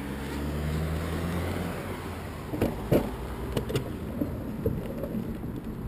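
A car drives past, its low engine hum swelling and fading over the first two seconds. Then a bicycle rolls off with sharp knocks and rattles from the handlebar-mounted camera as it goes over the pavement.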